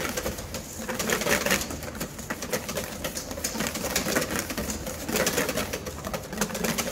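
Wire whisk beating egg yolk and brown sugar in a stainless steel bowl set over boiling water, its tines clicking rapidly and steadily against the metal as the sabayon is whisked over a double boiler.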